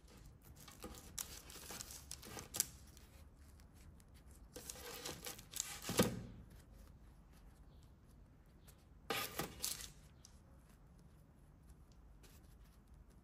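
Hands handling soft baked yeast buns on a parchment-paper-lined baking tray: the paper crinkles and rustles and the bread tears softly as a bun is lifted and pulled apart, in several short bursts with a sharper crackle about six seconds in.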